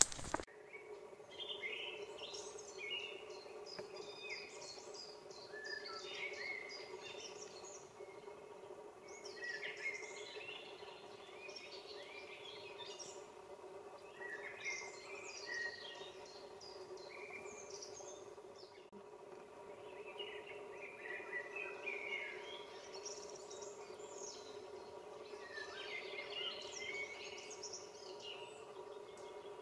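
Songbirds singing in short, busy phrases that come in bouts every few seconds, over a faint steady hum.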